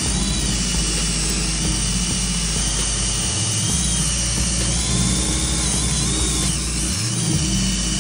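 Power drill spinning a rubber sticker-remover (eraser) wheel against painted bodywork, running steadily as it rubs off old decal glue.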